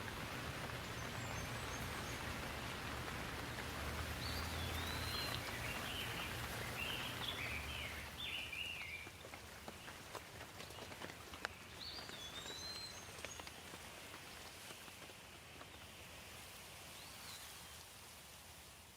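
Steady rain falling, with a bird chirping in short bursts a few times over it and a low rumble underneath. The level eases off about halfway through and fades down at the very end.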